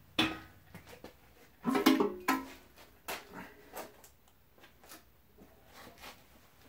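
Metal clanks and ringing as the stamped-steel crankcase pan of a Ford Model T engine is lifted off the block. A sharp knock comes at the start, a loud cluster of ringing clangs about two seconds in, then a few lighter knocks.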